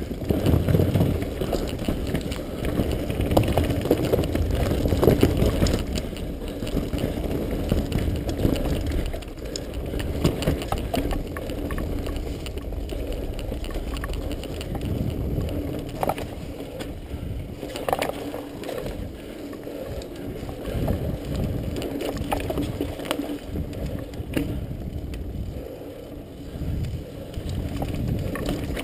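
Mountain bike riding fast down a dirt forest trail: a steady low rumble of the tyres rolling over dirt, with frequent clicks and rattles from the bike over bumps.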